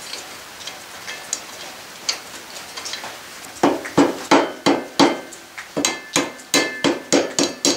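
Hammer striking steel at a truck drive shaft's U-joint and U-bolt: a quick run of sharp, ringing metal blows, about three a second, starting about halfway through.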